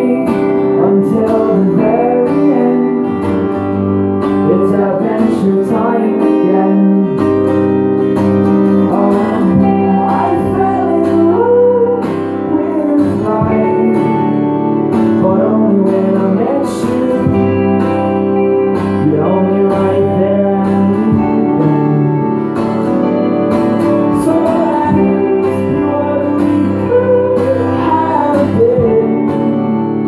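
Live acoustic guitar strumming with an electric guitar playing along, in an instrumental passage of a folk-pop song.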